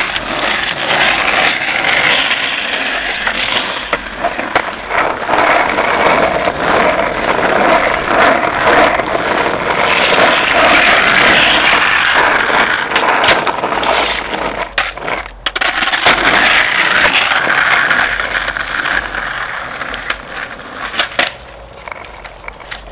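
Skateboard wheels rolling over rough asphalt, a steady grinding rumble broken by frequent sharp clicks and clacks of the board. It quietens over the last few seconds.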